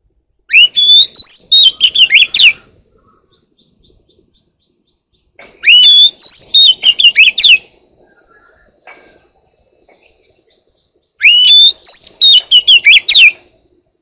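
Oriental magpie-robin singing three loud song phrases of about two seconds each, made of rapid whistled notes that glide up and down. Faint quick notes come between the phrases.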